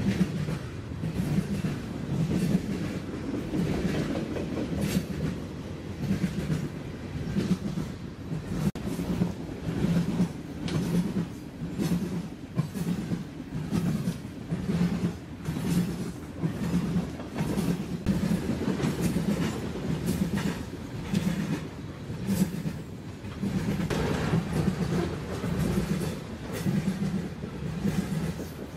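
A BNSF coal train rolling past, with a diesel locomotive unit going by at the start and then a long string of coal cars. The wheels beat a steady clickety-clack over the rail joints, a rhythmic clatter about once a second with sharp knocks and rattles.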